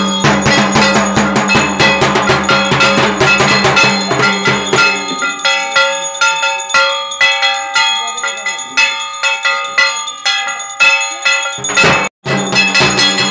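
A bell-metal gong (kansar) struck rapidly with a stick, clanging and ringing, with a drum beating in time for the first few seconds. The drum drops out about five seconds in, leaving the gong alone. A short break near the end, then drum and gong go on together.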